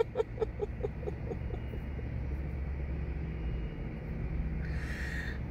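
A woman's soft laughter, short chuckles that fade out within the first second or so, followed by a steady low vehicle rumble.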